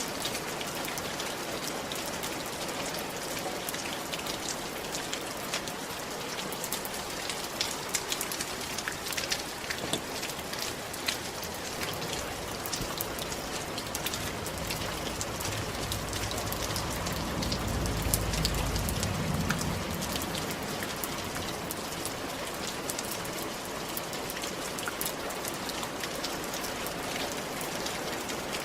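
Steady rain falling, with many sharp drop impacts on hard surfaces. A low rumble swells and fades about two-thirds of the way through.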